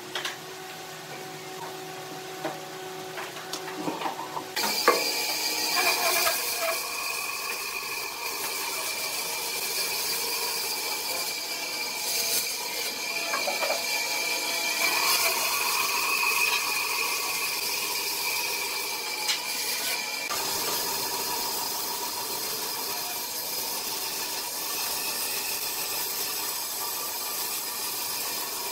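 Bandsaw running and cutting a curve through a thick softwood block: a steady machine sound with a high held tone, which drops away about twenty seconds in while the cut goes on. Before the saw starts, a few seconds of faint light knocks and handling.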